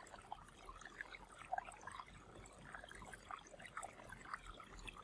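Faint water trickling and splashing, like a small fountain pouring from bowl to basin, with small irregular drips and splashes.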